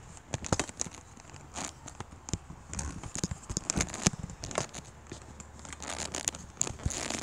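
Handling noise from a hand-held camera being carried and swung about: irregular crackling and rustling clicks.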